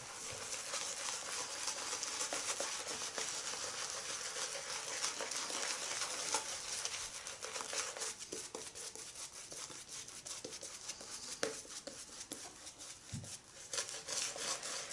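Synthetic shaving brush swirling shaving cream into a thick lather on a man's face: a steady, wet crackling swish of bristles through the foam, a little softer for a few seconds after the middle.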